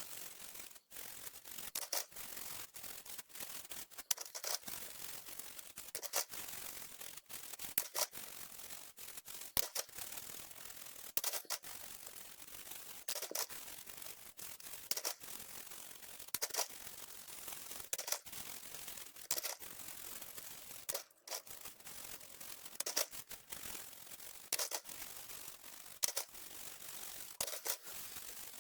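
Sharp plastic clicks and small rattles from HP SK-2502C keyboard parts being handled during teardown and cleaning, irregular, about one every second or two.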